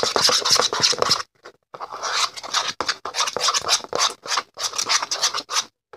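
Rapid scratching and scraping strokes of a utensil stirring glue slime in a plastic bowl as the Tide activator is mixed in, with a short pause after about a second.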